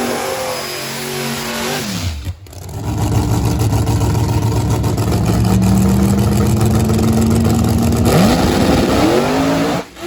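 Drag race car engines running hard down the track, with the engine note falling away about two seconds in and again near the end as the cars lift off or pass. Two abrupt breaks in the sound come where one clip cuts to the next.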